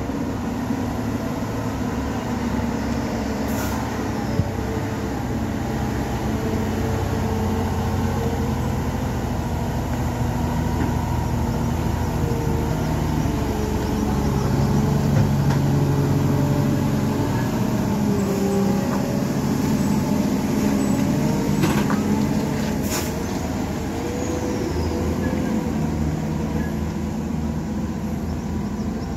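Diesel engine of a Hino 500 truck running as the truck comes round a hairpin bend and passes close by, loudest about halfway through. Two short sharp sounds come about three-quarters of the way through.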